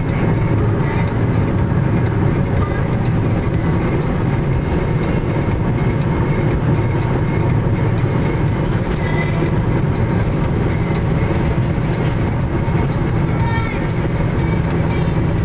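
Steady engine and tyre noise heard from inside a moving car on a wet road: a continuous low rumble with road hiss that holds even throughout.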